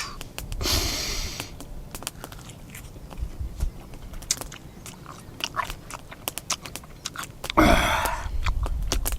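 A person biting and chewing a bite of a grilled sucuk skewer close to the microphone, with many small wet clicks and crunches. Two short louder noises come about a second in and near the end.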